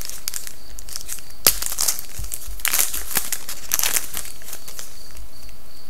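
Shiny wrapper of a Panini Titanium hockey card pack being torn open and crinkled by hand, in crackly rustles over the first four seconds, with one sharp snap about a second and a half in.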